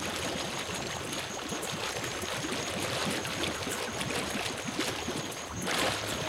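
Shallow river water churned and splashing as a crowd of Nile crocodiles feeds and thrashes, over a steady rush of water. A louder splash comes near the end.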